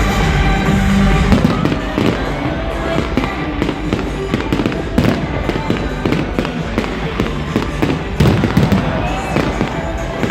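Aerial fireworks bursting in quick succession, with loud bangs and crackling. Music plays under them at the start, and people's voices are heard.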